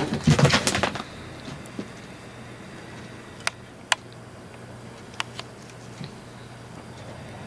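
A cat scrambling after a cat-teaser wand on the floor: a quick flurry of knocks and scuffs in the first second. Then a quiet room with a steady low hum and a few sharp light clicks.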